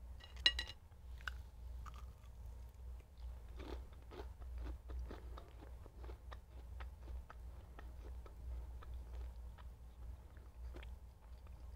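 A metal fork clinks sharply against the plate about half a second in. Then comes steady chewing with soft crunching and wet mouth sounds as the food is eaten.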